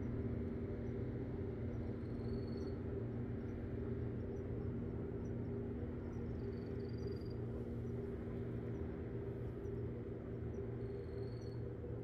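Steady outdoor seaside ambience: a continuous low hum and rumble, with a faint, short, high chirp repeating every few seconds.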